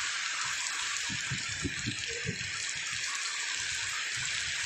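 Steady hiss of heavy monsoon rain and rushing floodwater, with uneven low rumbling underneath.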